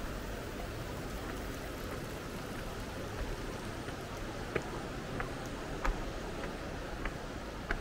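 Steady rushing of running water, with a handful of short, sharp clicks scattered through it, the loudest about six seconds in.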